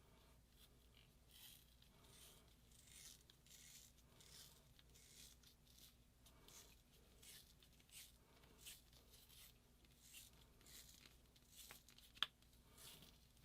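Faint rubbing or scrubbing strokes on a small part, about one and a half a second, with a single sharp click about twelve seconds in.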